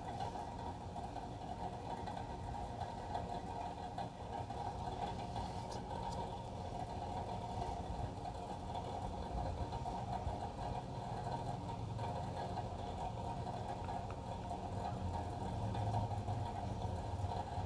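Steady mechanical hum with several constant tones, unchanging throughout.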